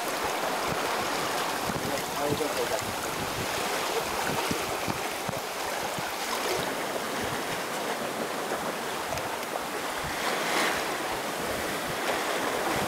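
Sea water rushing and splashing past the hull of a sailing yacht under way, a steady wash of spray and bow wave. Wind gusts rumble on the microphone.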